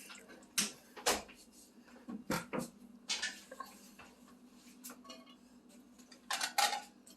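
Dishes and takeout containers being handled: a scattered series of knocks and clatters, several in quick pairs, over a steady low hum.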